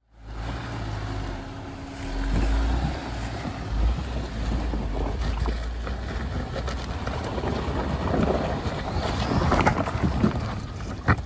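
A Jeep driving slowly up a loose, rocky dirt trail: the engine runs under a heavy low rumble of wind on the microphone, with scattered knocks and crunches from the tyres over rock late on.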